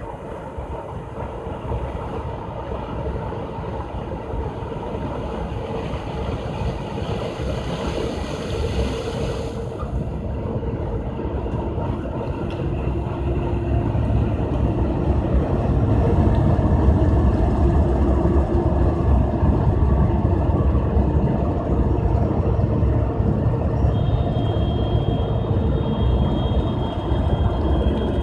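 Claas Lexion 480 combine harvester running while harvesting corn, a steady mechanical drone of engine and machinery that grows louder through the first half and then holds. A high thin whine joins near the end.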